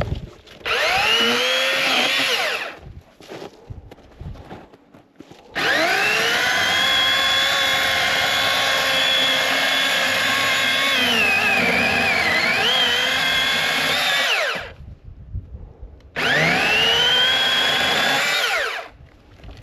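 Master Force 80-volt battery chainsaw's electric motor run three times: a short burst about a second in, a long run of about nine seconds, and another short burst near the end. Each burst opens with a rising whine as the motor spins up. Partway through the long run the pitch sags and wavers for a couple of seconds, as the chain takes load in the wood.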